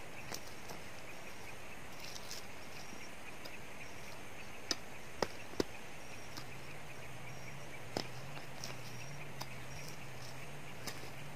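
A few sharp knocks of a digging tool striking soil and roots while a tree stump is dug out, three close together about halfway through and another a few seconds later, over a steady buzz of insects. A faint low hum joins about halfway through.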